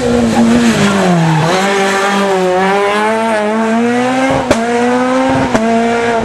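Peugeot 207 rally car's engine at full race revs through a hairpin. The note drops about a second in, then climbs steadily as it accelerates away, with two short sharp cracks near the end.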